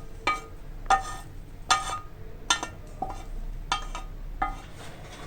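A spoon clinking against a dish, about seven short ringing clinks, evenly spaced, as sautéed vegetables are spooned in.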